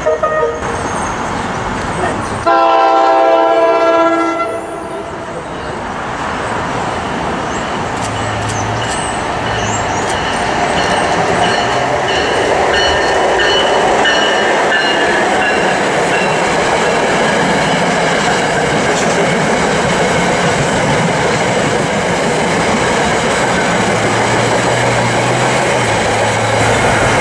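A train horn sounds once for about two seconds, then an NJ Transit electric locomotive and its passenger coaches pass close by with steady wheel-on-rail noise that grows louder.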